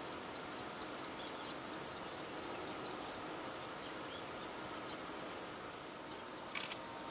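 Steady outdoor background hiss with faint, quick high-pitched chirping, and one sharp click about six and a half seconds in.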